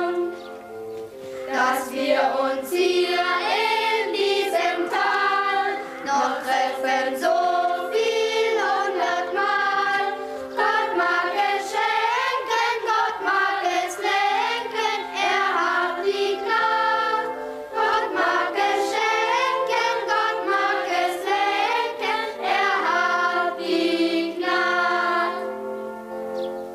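A choir singing a song, with long held lower notes in the accompaniment under the changing vocal lines.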